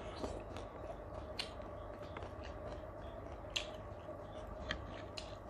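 Scattered faint, sticky clicks and squishes of fingers tearing apart a piece of glazed grilled chicken, over a steady faint background hum.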